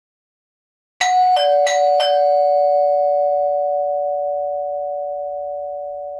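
Electric house doorbell chime: a two-note ding-dong struck twice in quick succession, high note then low, with both tones ringing on and slowly fading.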